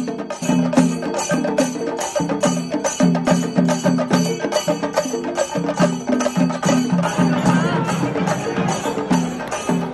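Background music with a quick, steady percussive beat of knocking strikes over a repeating low melody.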